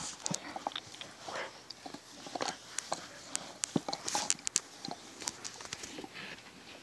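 Puppies mouthing and chewing a hard bone-shaped chew toy in play: irregular sharp clicks and knocks of teeth on the bone.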